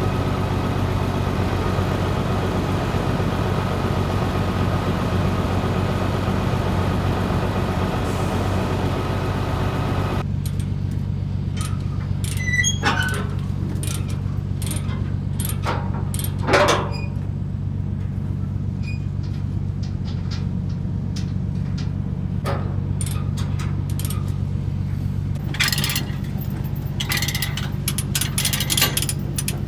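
A heavy diesel engine idling steadily. About a third of the way in a hiss stops and the engine note shifts. After that come scattered metal clinks and clanks, with one louder knock near the middle and a run of rattles near the end, as chains and hardware are handled while the machine is secured for hauling.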